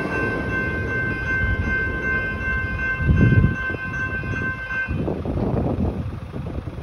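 Level crossing warning bell ringing a steady high tone that cuts off about five seconds in, as the crossing clears behind a passed train. Underneath is the low rumble of the electric train moving away, swelling briefly about three seconds in.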